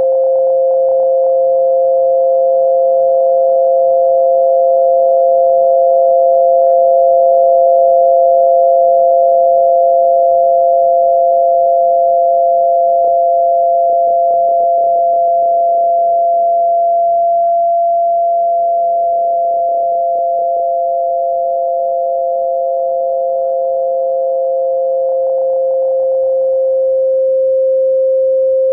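Electronic tinnitus-masking tones: two steady pure tones, a lower and a slightly higher pitch, held together. Near the end the higher tone fades out, leaving the lower tone sounding alone.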